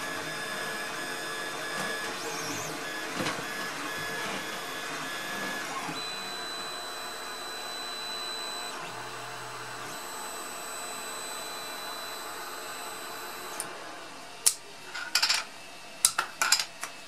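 Sovol direct-drive 3D printer printing, its stepper motors whining in several steady tones that shift as the print head changes moves. About fourteen seconds in the motors stop, and a run of sharp clicks follows as the printed PLA caps are handled on the bed.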